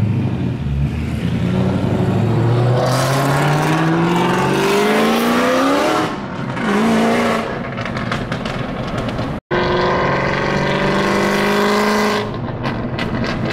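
Cammed, supercharged 2013 Ford Shelby GT500's V8 accelerating hard ahead of a following car. The engine note climbs steadily for several seconds, drops at a shift and climbs again, then holds a steadier pull after a break about nine seconds in.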